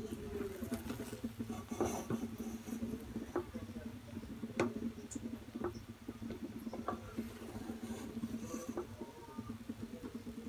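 Wooden spatula stirring and turning nearly cooked polao rice in a pan: soft scraping and rustling of grains with scattered light clicks against the pan. The rice's cooking water has cooked off.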